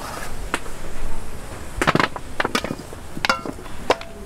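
Irregular sharp knocks and clatter, about five strikes spread over a few seconds, one with a short ringing tone, over a low background hiss.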